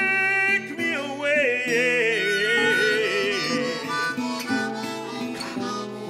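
Blues song: harmonica playing long held and wavering notes over guitar accompaniment.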